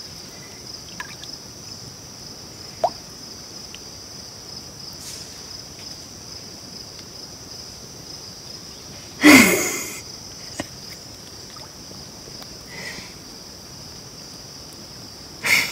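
Steady high-pitched insect chorus over quiet pond ambience, with a few faint ticks. A brief louder noise with a falling low tone comes about nine seconds in, and another short burst right at the end.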